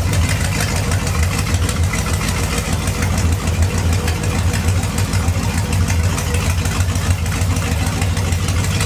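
Used marine 454 (7.4-litre) big-block Chevrolet V8 from a speedboat, running steadily with a low, even beat while it is kept going to warm up.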